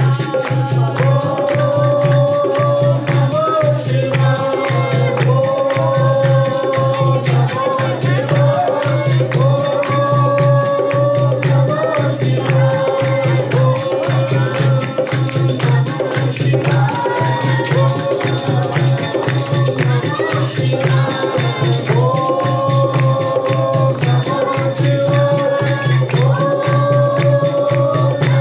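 Live devotional bhajan music: voices singing a melody in phrases over a steady, evenly pulsing beat, with jingling tambourine-like percussion throughout.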